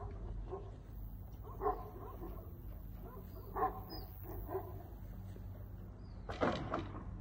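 Short animal calls come in small groups of two or three, over a steady low hum. About six and a half seconds in there is a brief, loud rushing noise.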